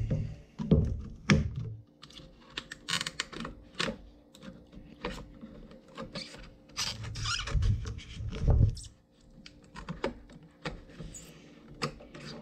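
Scissors cutting through a stiff plastic blister pack: irregular snipping clicks and crackling of the plastic, with a few low thumps as the package is handled on the tabletop.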